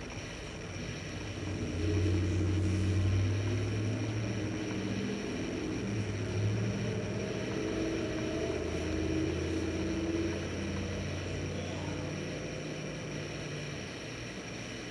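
A low engine-like drone that swells about two seconds in, holds, then slowly fades near the end, over a faint steady high whine.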